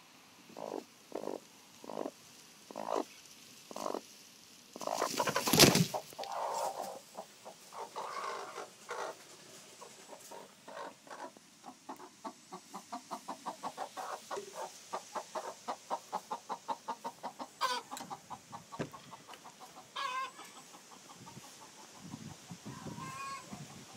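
Chicken clucking: a few separate clucks, a loud harsh burst about five seconds in, then a long run of quick clucks at about five a second.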